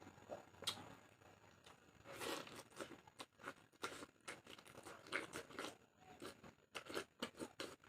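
Close-up eating sounds of someone chewing and tearing pork, with irregular short crunches and clicks.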